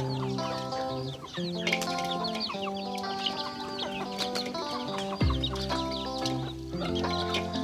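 Chickens clucking over a background music track of steady melodic notes. A deep falling bass note comes in about five seconds in.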